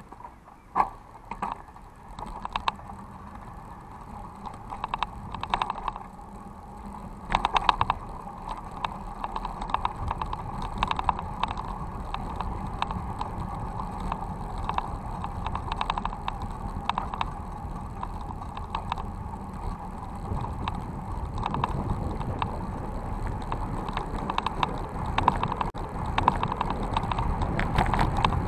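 A city bicycle rattling and clicking as it is ridden over paving, picked up by a camera clamped to its handlebar, with a few sharper knocks in the first eight seconds. Tyre and wind rumble grows louder in the second half.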